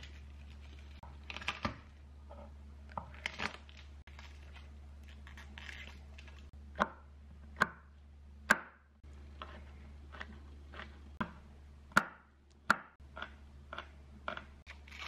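Garlic cloves being peeled, their papery skins crackling, then a chef's knife chopping garlic on a bamboo cutting board: sharp knocks of the blade on the wood less than a second apart, coming faster near the end.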